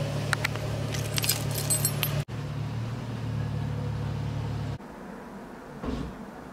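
A bunch of keys jangling and clinking for about two seconds, over a steady low hum that stops abruptly about three quarters of the way through.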